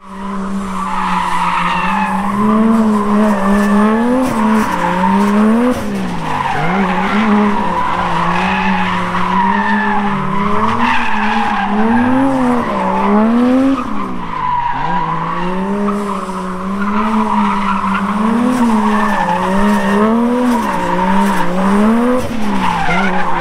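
A drag-racing engine held at high revs, its pitch repeatedly dipping and swinging back up every second or two as the throttle is worked.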